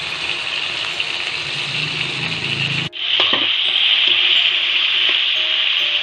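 Food frying in hot oil in a pan, a steady sizzle with the oil starting to spatter. It breaks off abruptly about three seconds in, then comes back louder.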